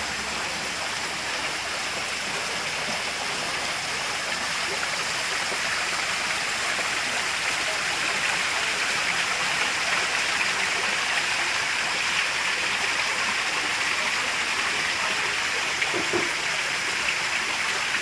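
Small rock-garden waterfall: a steady rush of water splashing over rock ledges into a pool, growing a little louder around halfway through.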